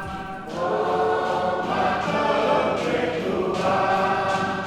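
A group of voices singing together in harmony, in sung phrases with short breaks between them.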